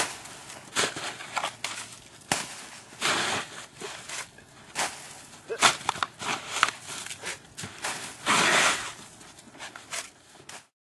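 Snow crunching and scraping as clumps of snow are thrown and land, in irregular bursts about a second apart, the longest near the end. The sound cuts off suddenly just before the end.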